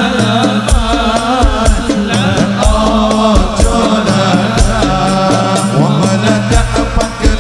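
Sholawat music: a voice singing a wavering, ornamented melody over fast, steady hand-drum strikes and a deep bass drum.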